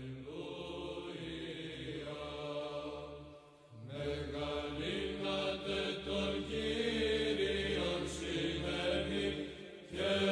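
Byzantine chant: a slow, held vocal melody over a steady low drone, in two phrases with a short break a little before four seconds in.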